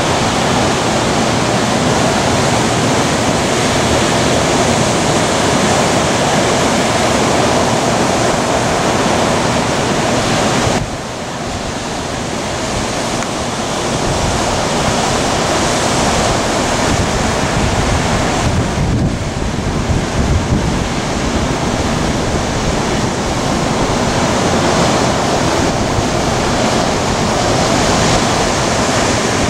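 Heavy hurricane surf crashing and rushing, with strong wind buffeting the microphone. The sound drops suddenly about eleven seconds in, then builds back.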